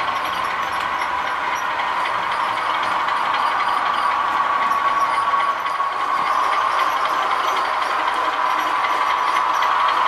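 Sound-fitted OO gauge model diesel locomotives running, the engine sound played by their DCC sound decoders through small onboard speakers: a steady diesel drone with a faint whine.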